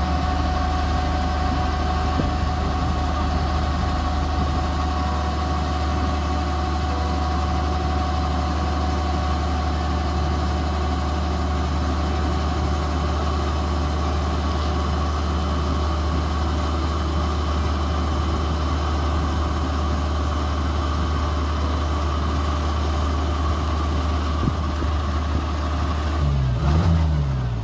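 Kubota DC-68G combine harvester's diesel engine running steadily while it unloads grain through its auger, with a constant machine hum. Near the end the engine note dips and rises.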